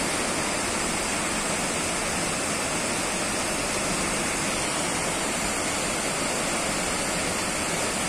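Waterfall pouring over a rocky ledge in two streams: a steady, even rush of falling water.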